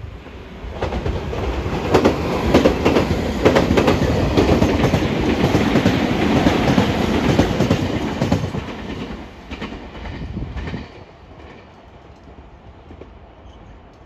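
A Meitetsu electric train, a 3500 series set coupled to a 3150 series set, passing close by. Its wheels clack repeatedly over rail joints as the rumble builds about a second in, stays loud for several seconds, then fades away after about ten seconds.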